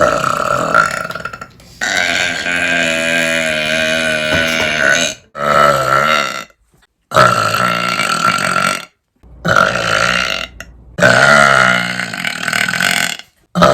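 A woman burping loudly, about six burps in a row with short gaps between them; the second is drawn out for about three seconds.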